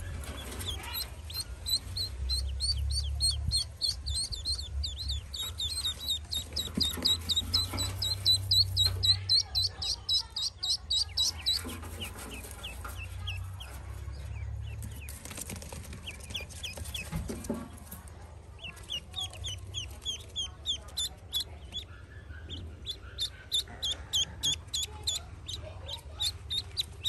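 Newly hatched Pekin ducklings peeping shrilly and rapidly, several peeps a second, in two long runs, with the calling fading for several seconds in the middle.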